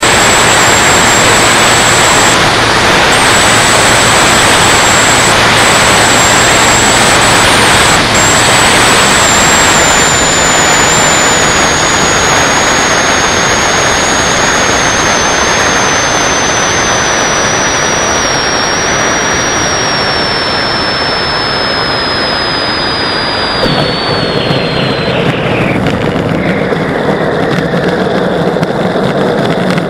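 Onboard sound of a radio-controlled BD-5 model jet's ducted fan over heavy rushing air: a high fan whine holds steady, then slowly falls in pitch as the throttle comes back, and drops away sharply about 25 seconds in as the fan winds down. From about 24 seconds in, a rougher rumble of the wheels rolling on the runway joins it.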